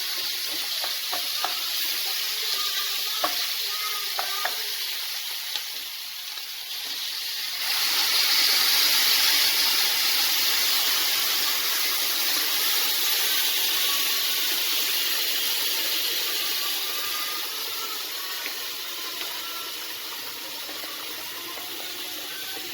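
Rice toasting in olive oil sizzling in a hot pan, with a few light knocks of a spoon. About eight seconds in, the sizzle suddenly grows louder and hissier as broth is poured into the hot pan, then slowly dies down as it heats.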